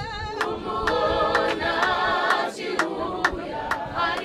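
A crowd of mourners singing together, with sharp hand claps about twice a second.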